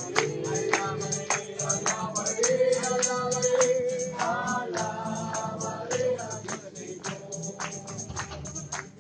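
Group singing of a praise song, with a tambourine struck in a steady quick rhythm throughout. Voices hold long sung notes in the middle.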